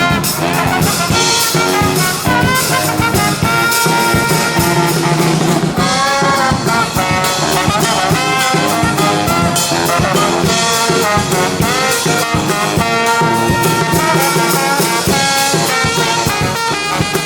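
Brass band playing a lively tune: trumpets and trombones over a steady drum beat.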